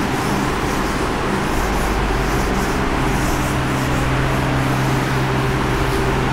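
Steady engine noise of a motor vehicle running, with a low hum that strengthens about three seconds in, over the brushing of a duster wiping a chalkboard.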